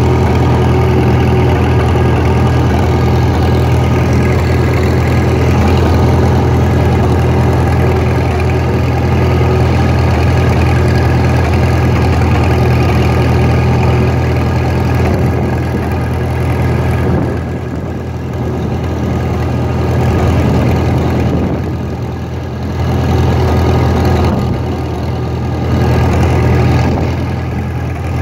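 Vintage International Harvester four-cylinder tractor engine running steadily as the tractor drives along, heard from the driver's seat. The engine note eases off briefly a few times in the second half.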